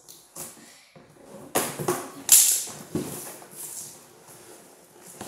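Toy packaging rustling and tearing as tape is pulled off, in irregular bursts, with the loudest about two seconds in.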